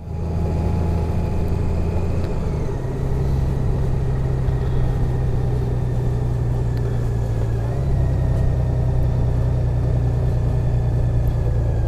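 2018 Honda Gold Wing's flat-six engine running steadily at low speed while pulling a trailer on a dirt road; its note shifts about two and a half seconds in and again near eight seconds.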